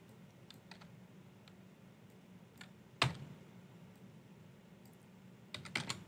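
Computer keyboard keys clicking in a few sparse keystrokes, with a sharper click about halfway and a quick run of keystrokes near the end.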